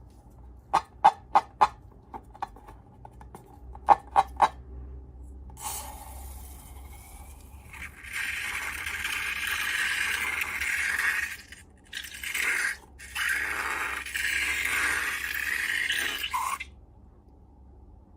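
Slime-making materials being handled: a few sharp taps, four in quick succession and then three more, followed by a long stretch of scraping, rustling noise broken by short pauses.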